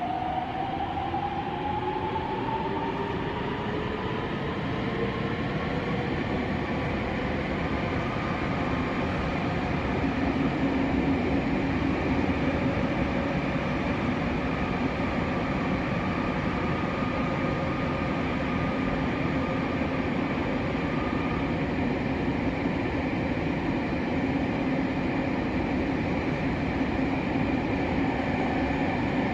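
Nagoya subway 6050-series train heard from inside the car. The whine of its Toyo IGBT-VVVF traction motors rises in pitch over the first several seconds as the train picks up speed, then gives way to the steady noise of running at speed.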